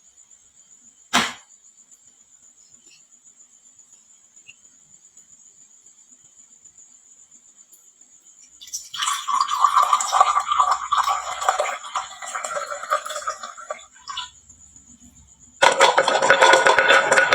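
Marbles clattering down a wooden marble run: one sharp click about a second in, then a dense rattling stream of marbles from about halfway, stopping briefly and coming back louder near the end, over a faint steady high whine.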